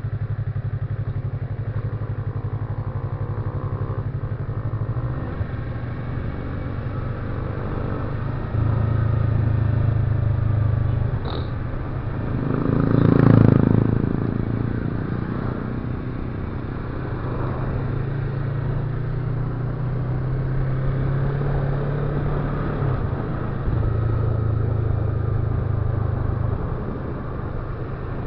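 Engine drone of a moving road vehicle, steady but stepping up and down in level, with a louder swell that rises and fades about halfway through.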